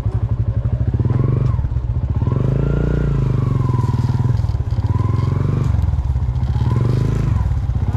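Yamaha motorcycle engine running at low speed with the rider aboard, rising a little in pitch with light throttle about two to three seconds in and again near the end.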